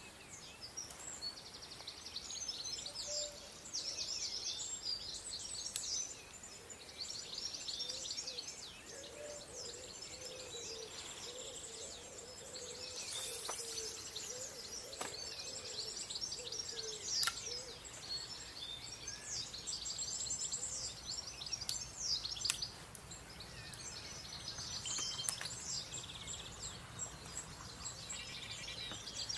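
Songbirds singing and chirping throughout, with many short high calls overlapping. A few sharp clicks stand out, the loudest a little past the middle.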